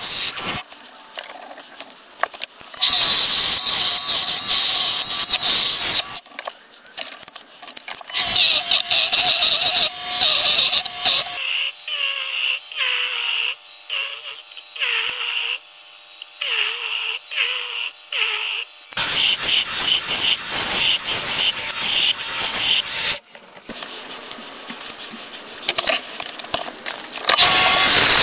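A Clarke 13-inch mini wood lathe spins a wooden handle blank while a gouge cuts it, giving hissing, scraping cutting sounds in several stretches with short pauses between them. In the middle there is a stretch of high, wavering squealing.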